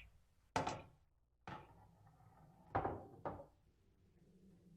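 A pool shot: a cue strikes the cue ball and billiard balls clack together, four sharp knocks spread over about three seconds.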